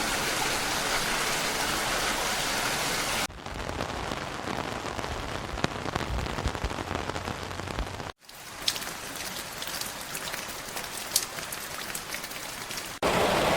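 Recorded rain sounds, three different clips spliced back to back: a steady even hiss of rainfall, then a softer patter, then rain with distinct drops ticking. Each clip cuts off suddenly, about three seconds in and again about eight seconds in.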